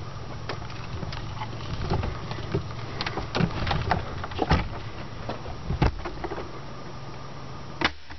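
Handling noise from a camera mounted on an airsoft rifle: irregular knocks, clicks and rattles as the gun and mount are moved about, over a steady low rumble.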